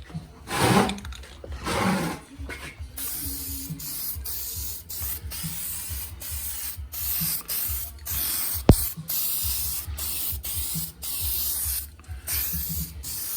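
Aerosol can of primer spraying in a run of short passes, a hiss with brief breaks between bursts. One sharp click comes about nine seconds in.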